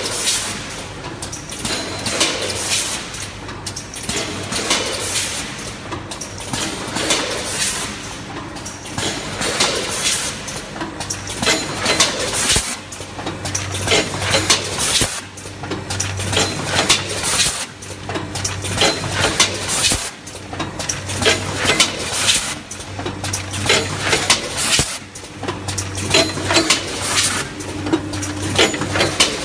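Rotary premade-pouch packing machine running, filling popcorn bags: its stations clack repeatedly, about one to two strokes a second, over a low machine hum that comes and goes.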